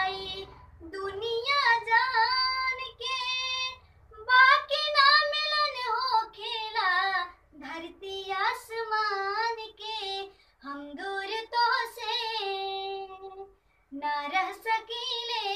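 A girl singing unaccompanied in a high voice, in sung phrases broken by short breaths.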